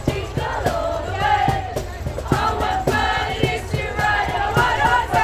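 Pop music with a steady beat, about two strokes a second, played over loudspeakers, with singing voices and a crowd.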